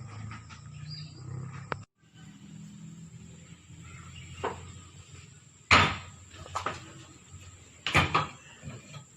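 Metal clanks and knocks from work on an excavator's track undercarriage, with two loud bangs about two seconds apart and a few lighter knocks, over a low steady hum. The sound cuts out briefly near the start.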